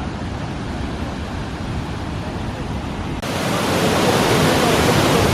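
Steady rushing noise of wind on the microphone, which changes abruptly about three seconds in to a louder, brighter, continuous rush of falling water from the waterfall.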